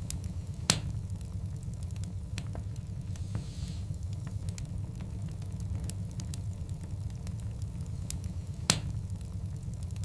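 Burning logs in a wood fire: a steady low rumble with scattered small crackles, two sharp loud pops (one about a second in, one near the end) and a brief faint hiss midway.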